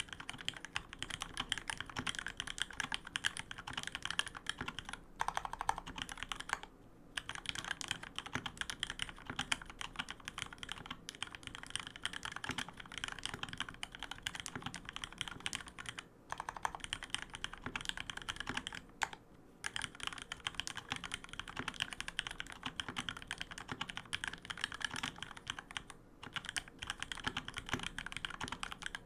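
Continuous typing on a custom 65% mechanical keyboard with a white acrylic case, vintage Cherry MX Black linear switches lubed with Krytox 104, and PBT keycaps: a dense stream of keystroke clacks, broken by a few short pauses.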